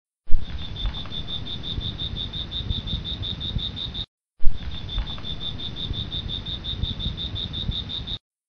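Crickets chirping in a steady run of about nine short chirps a second over a low rumble. It is a looped sound clip that cuts out and restarts twice, with a loud pop at each restart.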